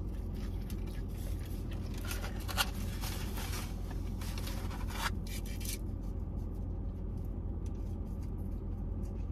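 Paper fast-food packaging rustling and crinkling for about three seconds in the middle, with a few small clicks around it, over a steady low hum inside a car's cabin.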